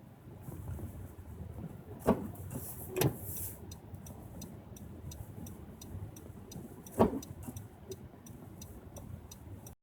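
Car cabin with a steady low road rumble, three sharp thumps and a fast, even ticking that starts about three seconds in. The audio cuts off suddenly just before the end.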